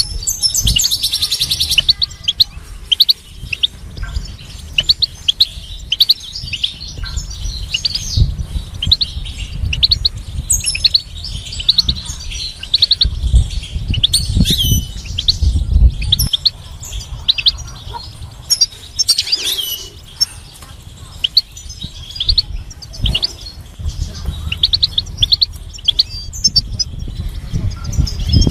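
European goldfinch singing: a continuous run of quick, high twittering chirps and trills, broken by short pauses.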